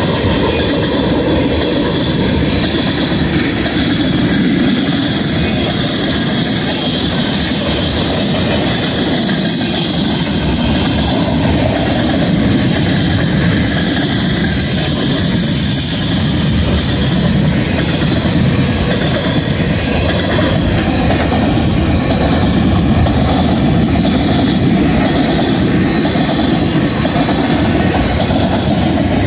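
Manifest freight train of covered hoppers and tank cars rolling past close by: the steady, loud rumble and rattle of steel wheels on rail, going on without a break.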